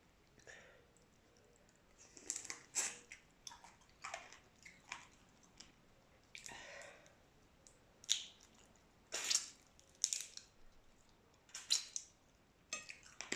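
Close-up mouth sounds of eating boiled shrimp and rice: chewing and wet lip smacks, a string of short sharp sounds at irregular intervals.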